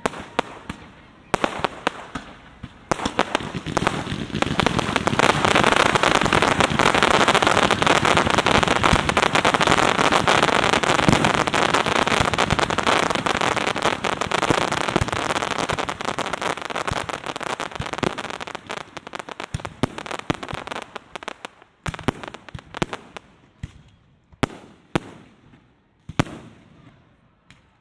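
Aerial fireworks: a few separate shell bursts, then from about four seconds in a dense barrage of rapid bangs and crackling for over ten seconds, thinning out to scattered single booms near the end.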